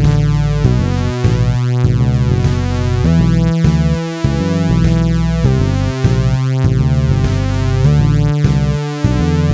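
Electronic synthesizer music: a repeating synth bass line under sequenced, stepwise synth notes.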